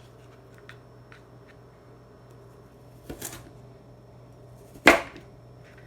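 Kitchen knife cutting through raw sweet potato into wedge fries, the blade coming down on the work surface: a softer cut about halfway through, then one sharp knock near the end.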